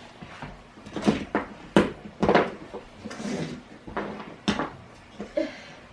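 A handful of sharp knocks and clunks at uneven spacing, the sound of objects being handled or set down.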